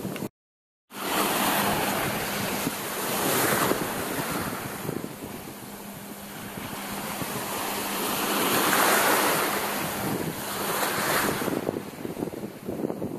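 Shallow surf washing in and out over sand, swelling and fading in several surges, with wind rushing on the microphone. The sound drops out completely for about half a second just after the start.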